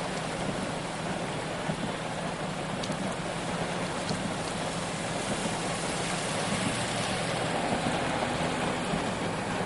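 Steady heavy rain falling, an even constant hiss with no single event standing out.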